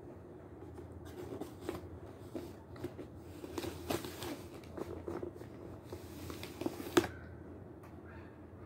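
Close-up chewing of Severski edible chalk with yogurt: a run of small crisp crunches and clicks. One sharper, louder crack comes about seven seconds in.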